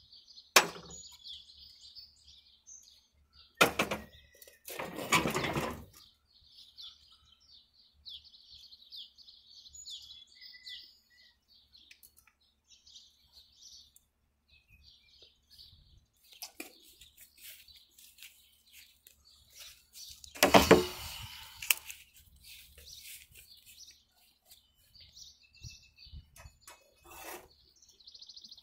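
Birds chirping throughout, with a few clanks and rattles of hand tools and metal parts on a riding mower being worked on: sharp knocks about half a second and nearly four seconds in, and longer rattling clatters around five seconds and again around twenty seconds in. The mower's engine is not running.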